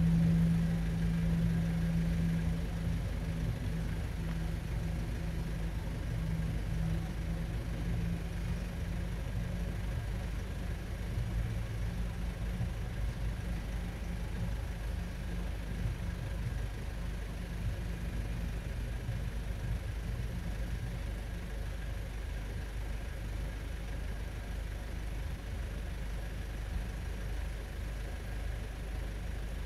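Vehicle engine running with a steady low hum that fades away over the first ten seconds or so, leaving a constant low rumble.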